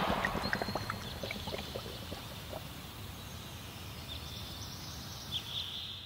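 Soft ambient noise fading down, with faint scattered ticks through it and a short high chirp near the end.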